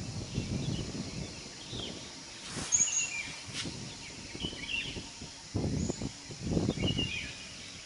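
Outdoor ambience of small birds chirping briefly here and there over an uneven low rumble, which swells for a couple of seconds near the end.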